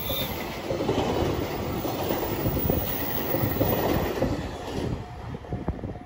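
Freight train container wagons rolling past, their wheels clattering over the rail joints with a steady rushing roar. The sound fades about five seconds in as the last wagon clears.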